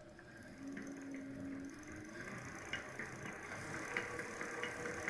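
Electric hub motor spinning up under light throttle with a rising whine, and from about halfway in a light metallic tapping about twice a second, 'tyn-tyn-tyn'. This is the knock inside the motor-wheel that comes on as throttle is applied and carries into the brake drum.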